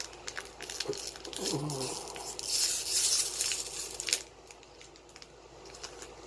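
Foil booster pack of trading cards crinkled and torn open: a run of small crackles, then a louder tearing rasp from about two to four seconds in.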